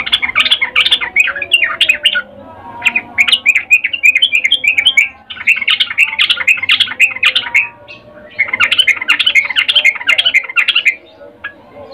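Yellow-vented bulbul (trucukan) singing in four rapid bubbly chattering bursts, each about two seconds long with short pauses between. The uploader presents it as a female's breeding call ('ngecuplik') to a male.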